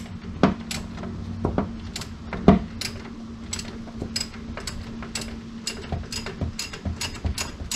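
Hand socket ratchet clicking as it is worked back and forth in short swings, loosening a rusty starter-mounting barrel nut. The clicks come scattered at first, then settle to about two or three a second.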